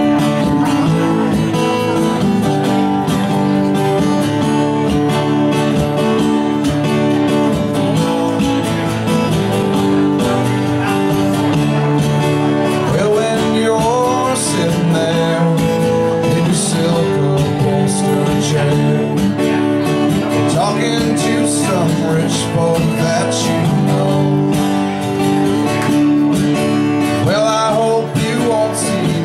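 Live acoustic guitar duo playing a country-flavoured tune, both guitars plucked and strummed steadily, with a voice singing at times.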